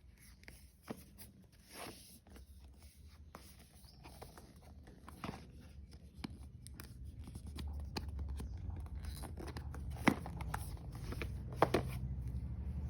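Phone box and packaging being handled and opened by hand: scattered clicks, taps and rustles, with two sharper knocks near the end over a low rumble of handling noise.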